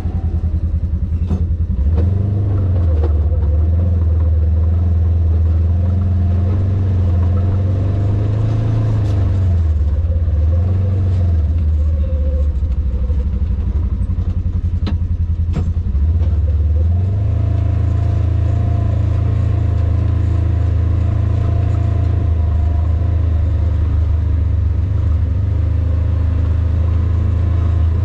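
Off-road vehicle's engine pulling slowly along a rough dirt track, a steady low drone that dips and rises in pitch with the throttle around the middle, with a few sharp knocks.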